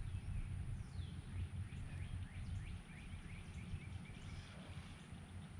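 Birds calling outdoors in a quick run of short, falling chirps, over a low steady rumble.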